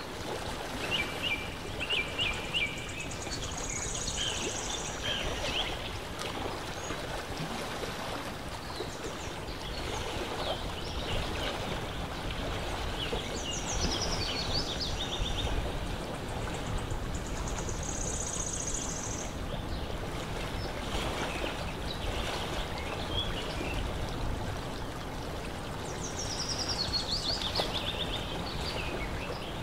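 Lake water washing steadily at the shore, with a small songbird singing short, fast trilled phrases about five times.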